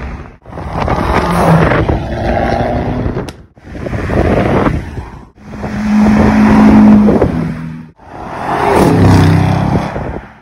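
A run of different cars accelerating past one after another, each engine swelling loud and then cut off abruptly, about every two to three seconds.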